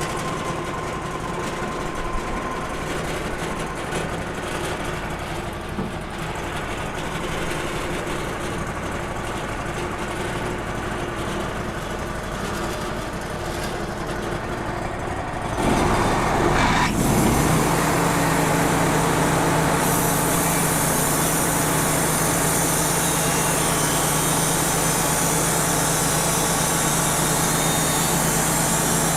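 Wood-Mizer LT35 band sawmill running: its engine runs steadily, then revs up about 16 seconds in and settles into a louder, steady drone. From about 20 seconds in a bright hiss joins it as the band blade cuts through the soft maple log.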